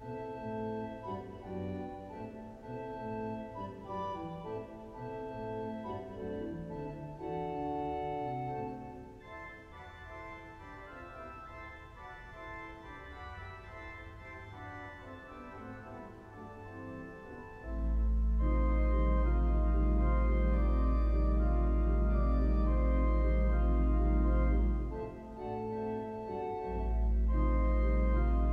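The Hull City Hall pipe organ (1911 Forster & Andrews, rebuilt by Compton in 1951) playing a fanfare in moving chords. About two-thirds through, a very deep, loud pedal note comes in and holds. It drops out briefly, then returns near the end.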